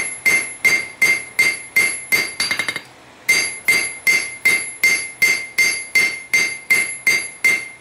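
Hand hammer striking hot stainless steel on an anvil at a steady pace of about three blows a second, each blow ringing; the smith is drawing out the blade stock to gain length. A quick run of light taps and a brief pause come about two and a half seconds in, then the strikes resume.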